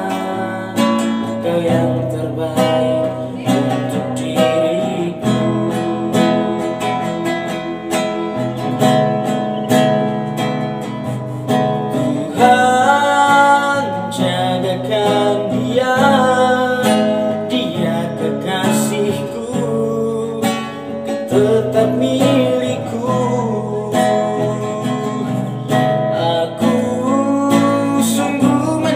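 Nylon-string classical guitar strummed in a steady accompaniment, with a man's voice singing a slow melody over it.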